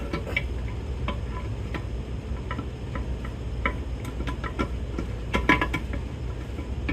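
Scattered light metallic clicks and taps as a transmission case half is worked down onto the other half, with a cluster of clicks about five and a half seconds in. A low steady hum runs underneath.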